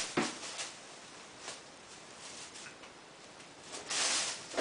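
Thin plastic carrier bag rustling and crinkling as a kitten scrabbles and pounces in it. There are a few short rustles at first, then a long, loud crinkling burst near the end as it leaps onto the bag.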